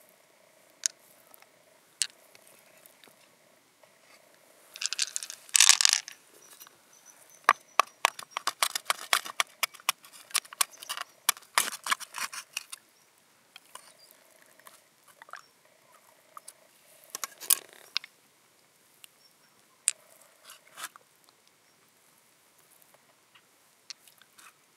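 Close-up handling of an opened freshwater mussel: wet squishing of the soft flesh and scattered sharp clicks. There is a dense run of rapid clicks through the middle and a few shorter bursts later.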